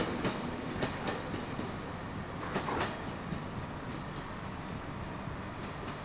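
Train running along the track, with a few wheel clicks over rail joints in the first three seconds; its running noise eases off, then holds steady.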